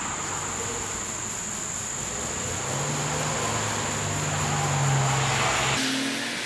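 A cloth rubbing by hand over car paint, buffing dried rubbing compound off an old VW Beetle's oxidized original paint. Behind it is a steady high-pitched insect drone that cuts off abruptly near the end, and a low hum that swells in the middle.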